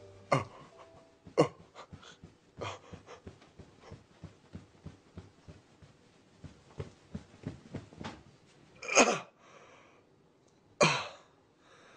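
A man's short grunts and strained breaths, with two loud breathy gasps near the end.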